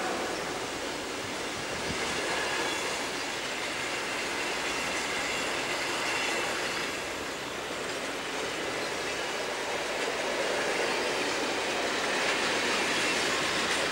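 Freight train wagons rolling past close by: a steady rolling rumble and rattle of steel wheels on the rails.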